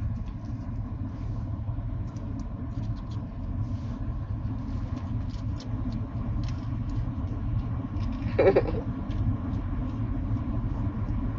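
Steady low rumble of a car heard from inside the cabin, with faint ticks and one brief sharper sound about eight and a half seconds in.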